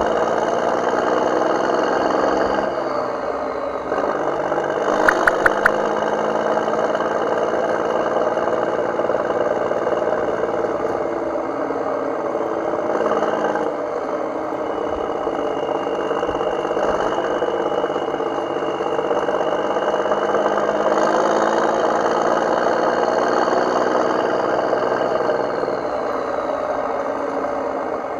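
An engine running steadily, its pitch slowly rising and falling, with three quick clinks about five seconds in.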